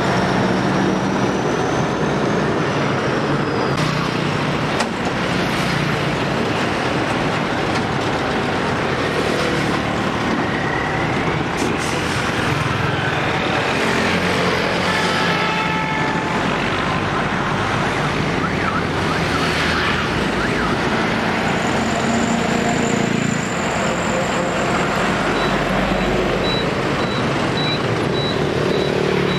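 Steady, loud roadside traffic: container trucks, lorries and motorbikes passing close by, engines and tyres running without a break.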